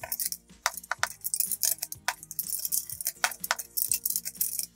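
Steel L-shaped socket wrench clinking against the front axle nut of an electric scooter as the nut is turned to tighten the refitted wheel: a quick, irregular series of sharp metallic clicks.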